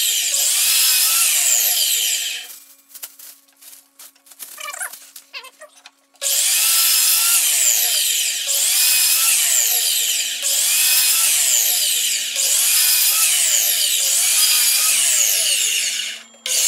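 Electric compound miter saw running and cutting through hardwood strips (maple, cherry and walnut) to make diamond-shaped blocks. It runs loud and continuous, stops for about three and a half seconds a couple of seconds in, with only a few light knocks, then runs again until just before the end.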